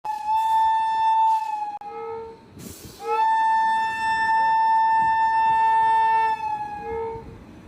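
Train horn sounding two long steady blasts, a short one of under two seconds and then a longer one of about four seconds, with a brief hiss between them.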